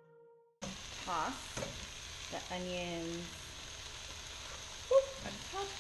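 Shaved Brussels sprouts sizzling in ghee in a stainless skillet while a spatula stirs and scrapes them. A sudden louder clunk comes near the end, as diced onion is tipped in from a bowl.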